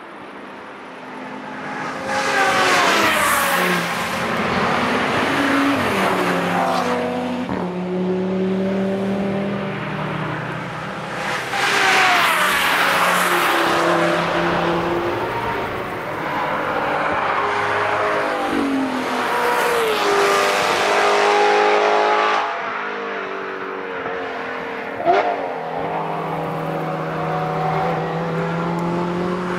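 Audi cars passing at speed on a race track one after another, engines revving hard, the pitch sweeping down as each car goes by. A short sharp crack sounds about 25 seconds in.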